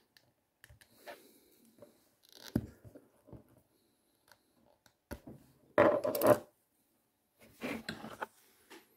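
Small glass perfume spray bottle being twisted open by hand: light scraping and clicking of its knurled metal collar on the thread, with a louder burst of grating clicks about six seconds in and another shorter bout near the end.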